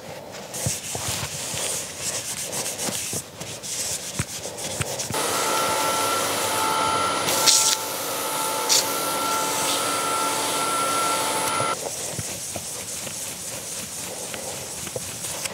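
Cloth rubbing finish onto a small turned wooden piece on a wood lathe, with light knocks. From about five seconds in to about twelve, a steady hiss with a high whine joins in, as of the lathe running, then stops suddenly.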